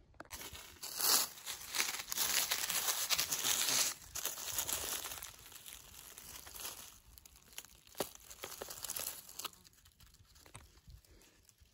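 Dry leaf litter rustling and crunching as it is handled, loudest in the first four seconds and then fading, with a few sharp crackles near the end.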